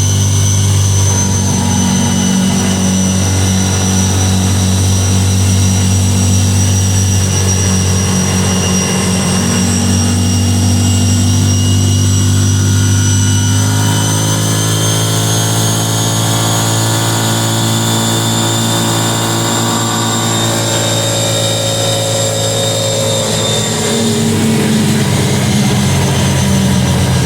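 ATV engine running under way. Its pitch shifts and glides about halfway through as the engine speed changes, and a thin high whine runs over it.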